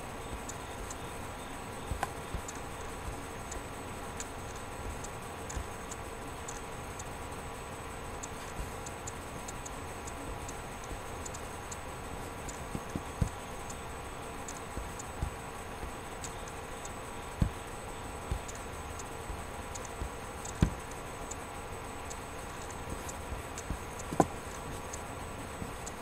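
Steady electrical hum with a faint, irregular ticking running through it, which the owner takes to be a fan or his laptop, with a few soft knocks scattered through.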